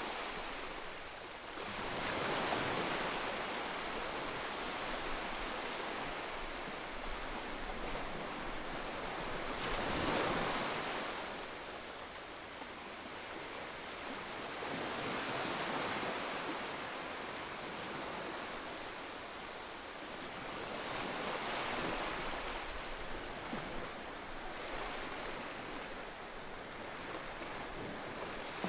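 Ocean waves breaking and washing up a shore, a steady rush of surf that swells with each wave about every five to six seconds.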